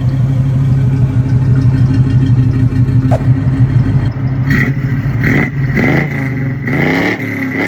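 A 1978 Chevrolet Malibu's engine idling steadily through its stock 2-inch exhaust, then revved several times from about four seconds in. It has the mild sound of the stock exhaust, like a 'grandpa mobile'.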